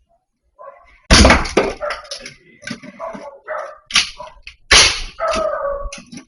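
Dog barking loudly and repeatedly, with the loudest, sharpest barks about a second in and again near four and five seconds, followed by a longer drawn-out call near the end.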